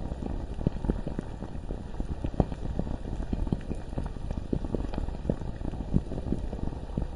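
Molten lava bubbling thickly: a dense run of small, irregular pops over a steady low rumble.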